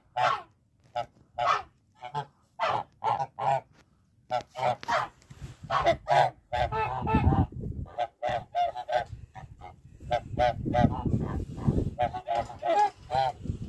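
Kholmogory geese honking: a long series of short, loud, repeated calls, several a second, from more than one bird. A low rumbling noise runs under the calls midway and again near the end.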